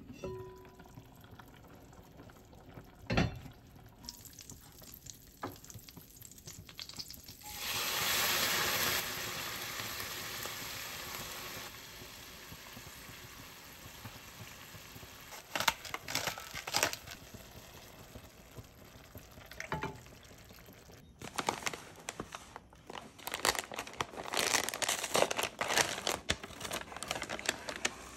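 Cooking sounds: a single knock of the Dutch oven's lid about three seconds in, then a sizzle that swells and slowly fades as ragu is ladled into a hot pan, with a few clinks of the ladle. Near the end comes a long stretch of paper crinkling as fresh pasta is unwrapped.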